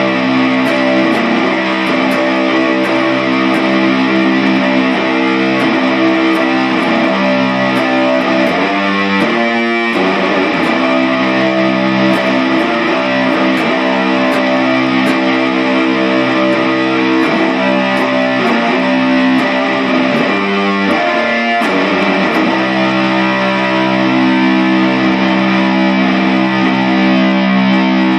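Loud music led by distorted electric guitar, with sustained chords that shift briefly twice, picked up by a phone's microphone.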